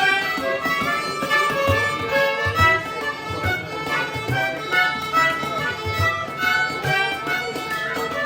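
Background music: a fast fiddle tune over a light percussive beat.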